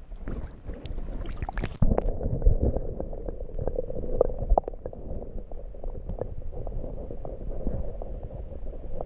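Water sloshing and gurgling close to the microphone, with scattered knocks. About two seconds in, the high end drops away and the sound turns muffled and rumbling.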